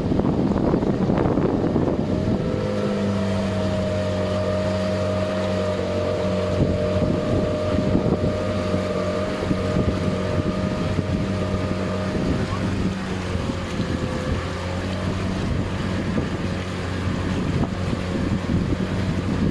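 A boat's motor running steadily under way, its even hum standing out about two seconds in, with wind buffeting the microphone.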